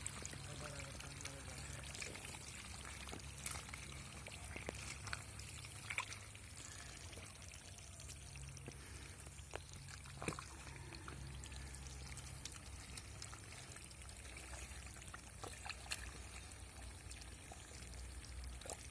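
Hands squelching and scooping through wet pond mud, with muddy water dribbling and splashing. The sound is faint, with scattered short wet splats over a low steady rumble.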